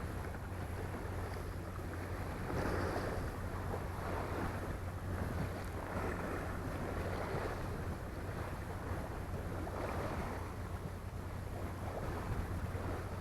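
Wind on the microphone and sea waves washing, rising and falling every couple of seconds, over a steady low hum.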